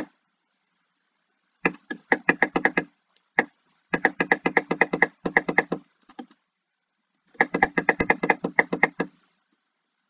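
Computer mouse button clicked rapidly over and over, in three runs of one to two seconds at roughly eight clicks a second, with a single click at the start.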